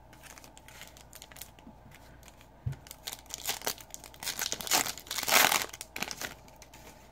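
Plastic foil trading-card pack wrapper being torn open and crinkled, loudest about five seconds in. Before it come light clicks of cards being handled and a soft thump.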